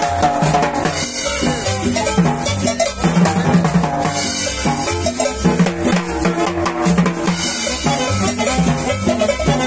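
Live Salvadoran cumbia band playing, with a drum kit and cymbals keeping a steady dance beat over bass and melody.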